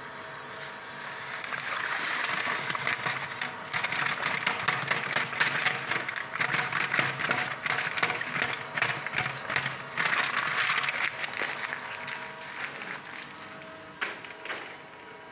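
Electric paddle stirrer mixing a barrel of 2:1 sugar syrup, with a steady motor tone underneath. Granulated sugar poured into the swirling syrup gives a dense crackly hiss that builds about two seconds in and fades near the end.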